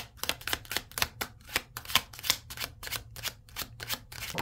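Tarot deck being shuffled by hand, cards slapping and tapping against each other in a steady run of quick clicks, about three a second.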